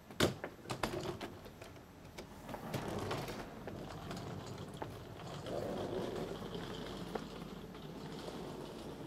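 Wheeled suitcases rattling as they are rolled over paving, with a few sharp knocks in the first second as a hard-shell case is hauled up steps.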